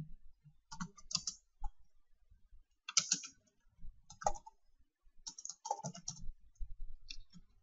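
Computer keyboard typing in several short bursts of keystrokes, with brief pauses between them.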